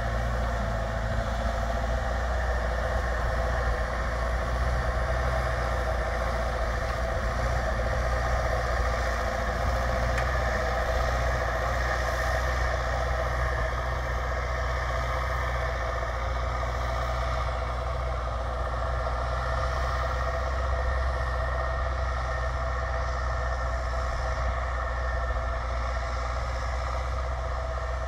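Belarus MTZ 1025.4 tractor's turbodiesel running steadily through a straight-pipe exhaust, pulling a plough, with a deep, even rumble that eases slightly near the end.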